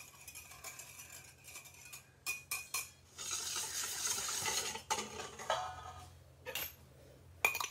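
Granulated sugar poured from a glass measuring cup into a stainless steel mixing bowl, a hiss lasting about a second and a half just past the middle. Around it, a few light clinks of a wire whisk and the glass cup against the bowl.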